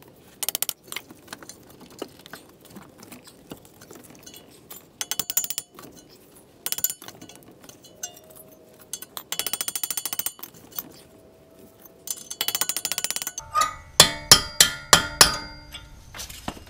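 Hammer blows on steel with a sharp metallic ring, about half a dozen strikes in quick succession near the end, driving the front axle shaft out of the spindle, where it is stuck fast. Before that come several short bursts of rapid metallic rattling.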